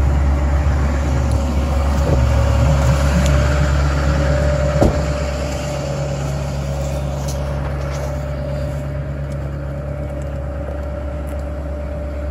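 2008 Chevrolet LMM Duramax 6.6-litre turbo-diesel V8 idling steadily on its cold-start high idle, heard first from inside the cab and then from outside by the tailpipe. A single sharp knock sounds about five seconds in, after which the engine sound is a little quieter.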